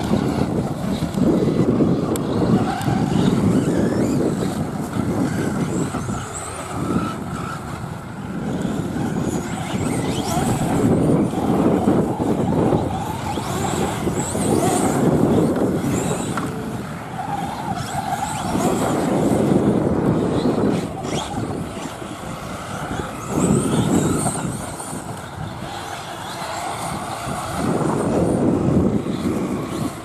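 Radio-controlled off-road cars racing on a dirt track: motors whining and tyres on loose dirt, the sound swelling and fading again and again as the cars pass.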